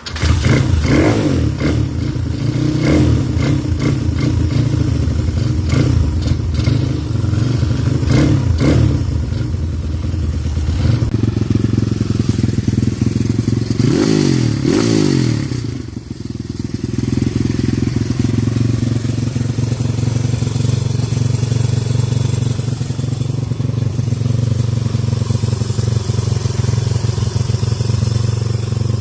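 Freshly rebuilt YX 140cc single-cylinder four-stroke pit bike engine running on its first start after the rebuild. It runs unevenly at first, is revved up and down about halfway through, then settles into a steady idle.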